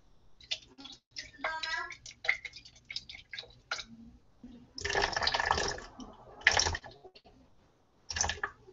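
Hot water poured in short runs into a plastic container on a kitchen scale, splashing and dripping with scattered small clicks, while coconut milk is thinned and weighed.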